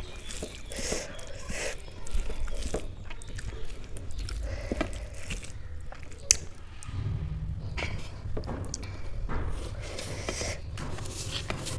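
Close-up eating sounds: fingers mixing rice into yogurt kadhi on a steel plate, with chewing and a few sharp clicks, one standing out about six seconds in.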